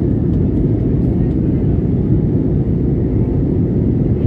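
Airliner cabin noise in flight: a steady low rumble of jet engines and airflow.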